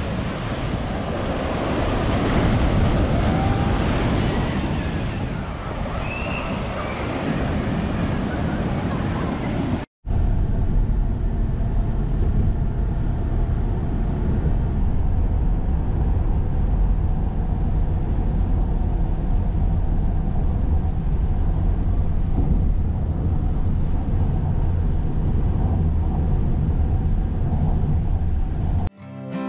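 Surf breaking against rocks and pier pilings in a steady rushing wash. After a sudden cut about ten seconds in, a low, steady drone of road and engine noise inside a moving car's cabin.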